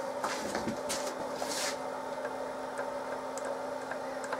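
Dividing head being turned by hand to rotate the clamped cylinder block: light clicks and a short rub or hiss over a steady hum.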